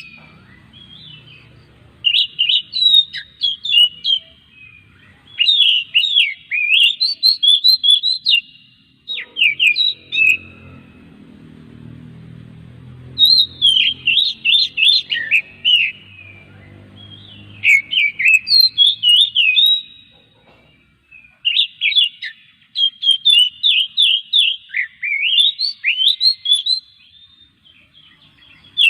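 Oriental magpie-robin (kacer) singing: repeated phrases of quick, whistled notes that sweep up and down, each phrase lasting two to three seconds with short pauses between.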